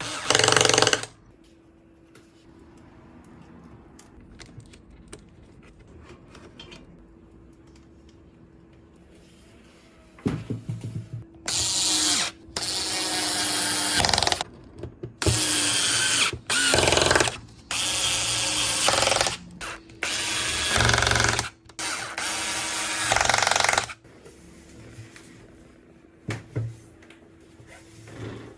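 A small handheld power tool run in short bursts: one at the start, then about eight bursts of one to two seconds each, from about ten seconds in to about twenty-four seconds in.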